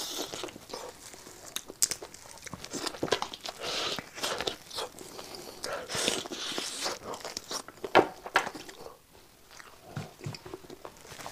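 A person biting and chewing spicy lamb trotters: irregular crunching and chewing sounds with sharp clicks, the loudest about eight seconds in, then a brief lull.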